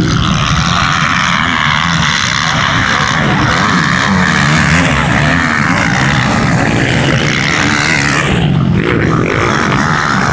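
Several motocross dirt bike engines revving up and falling back as the bikes ride past on the track, the pitch rising and dropping with the throttle.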